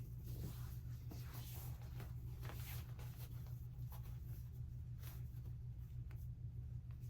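Pen writing on paper: irregular short scratching strokes over a steady low hum.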